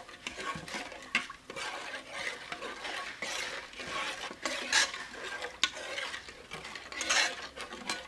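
A spoon stirring powdered spices (turmeric, dry ginger, pepper, cardamom) into coconut milk, scraping around the vessel with a few sharp clinks against its side.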